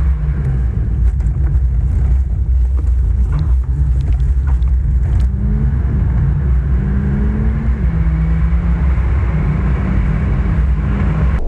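Inside the cabin of a Mahindra Thar petrol automatic driving at highway speed: a steady low road and engine rumble, with the engine hum shifting pitch a few times. No wind whistle is heard, since the cabin leak has been fixed.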